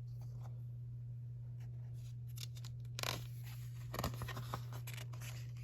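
Faint paper rustling from a picture book's pages being handled and turned, with a few soft clicks about three and four seconds in, over a steady low hum.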